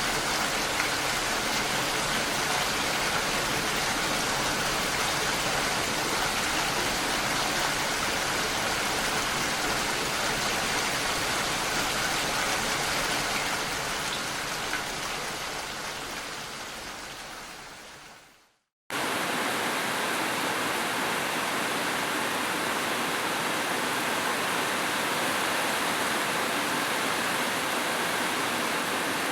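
Steady rain, an even hiss, fading out over a few seconds to silence about two-thirds of the way in. Moments later a similar steady rushing hiss starts abruptly.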